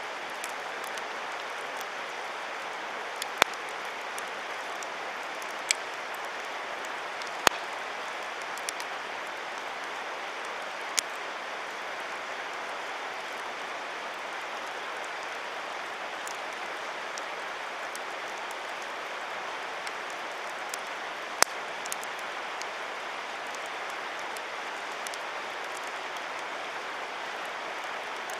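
Wood campfire burning and crackling, with sharp pops every few seconds over a steady rushing hiss.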